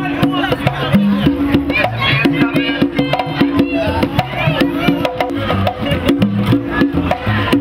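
Lively dance music with a quick percussion beat and a bass line from an upright bass, with voices calling over it.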